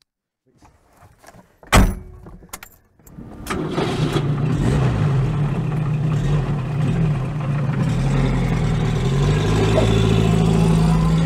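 A car door shuts with a loud slam about two seconds in. About a second later the rear-mounted 850 cc four-cylinder engine of a 1962 Renault Dauphine Ondine starts and runs steadily. Its note rises near the end.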